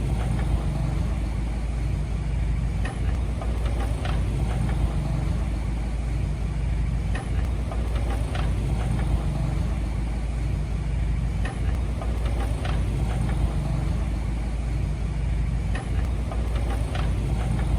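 Diesel engine of a heavy earth-moving machine running steadily at a low, even speed, with a few short sharp clicks or clanks scattered through it.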